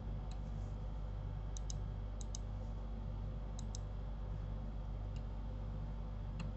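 Computer mouse clicking: about nine sharp clicks, several in quick pairs, over a steady low hum.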